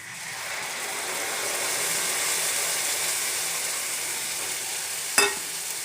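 Tomato paste sizzling as it goes into hot oil and ghee with fried onions in a kadai: a steady hiss that starts suddenly and swells over the first couple of seconds. A single sharp knock near the end.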